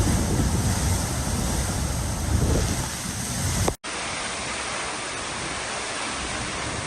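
Typhoon wind buffeting the microphone in gusts with a heavy low rumble. About four seconds in, an abrupt cut to a steadier, even hiss of storm wind.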